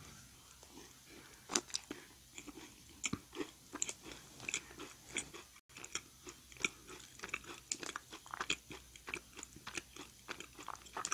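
Close-up chewing of a macaron: the crisp shell crunches and crackles in many small, quick bites and chews, with a brief sudden dropout about halfway through.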